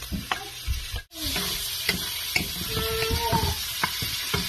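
A few knocks of a wooden spatula, then about a second in a steady sizzle of sliced pork frying in hot oil in a pan, stirred, with scattered clicks and scrapes.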